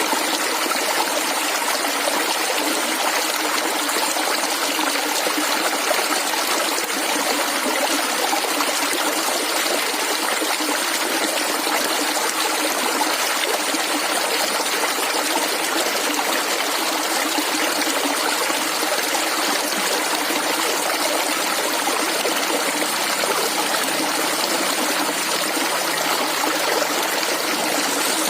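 Clear shallow stream water flowing and gurgling steadily.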